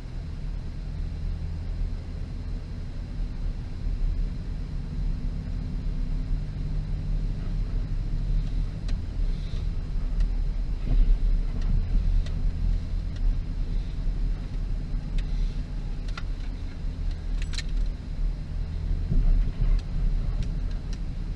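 2006 Subaru WRX's turbocharged 2.5-litre flat-four running at low, fairly steady revs with a low rumble, and a few light clicks partway through.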